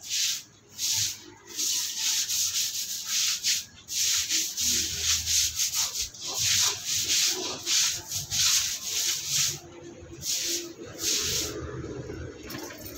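Scrubbing a wet, soapy concrete floor by hand in quick back-and-forth strokes, several a second, that thin out to a few separate strokes near the end.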